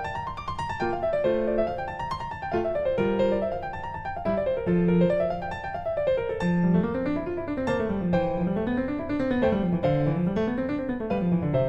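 Piano music: flowing runs of notes rising and falling, joined about halfway through by a lower line that weaves up and down.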